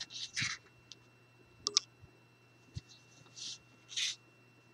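A few short scratchy rustles and one sharp click as hands handle cardstock and pull tape from a roll.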